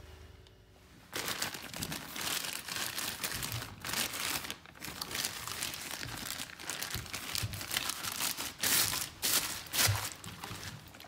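Thin plastic bag crinkling and rustling as it is pulled up and off a plastic bottle, starting about a second in and going on as an uneven run of crackles.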